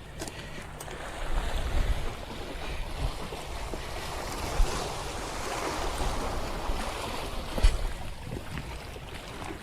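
Sea waves washing in over a rocky shore, a rushing surge that swells for a few seconds and then eases off. Two short low thumps stand out partway through.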